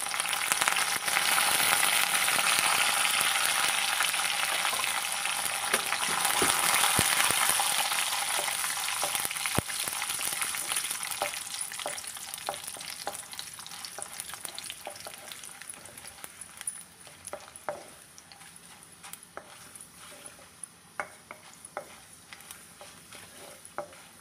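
Tempering sizzling in hot oil in a metal kadai: curry leaves, dried red chilli, dals, cumin and mustard seeds frying loudly as a wooden spatula stirs them. The sizzle fades gradually through the second half, leaving scattered pops and clicks.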